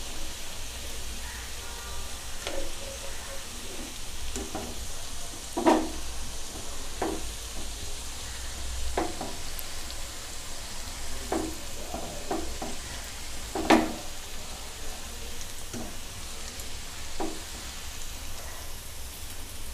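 Battered cauliflower deep-frying in hot oil with a steady sizzle. A wire skimmer and spatula lifting the pieces out clink and scrape against the pan at irregular moments; the loudest knocks come about six and fourteen seconds in.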